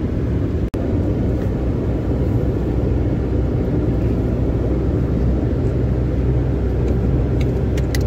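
Road and engine noise inside a moving car: a steady low rumble, broken by a brief drop-out under a second in.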